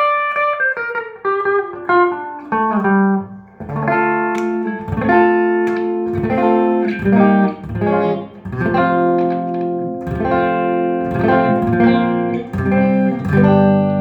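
Electric guitar with humbucking pickups played straight into a Trace Elliot Trident valve combo amp fitted with 6L6 power valves, no pedals or effects. A run of single notes steps downward, then fuller ringing chords are played from about four seconds in.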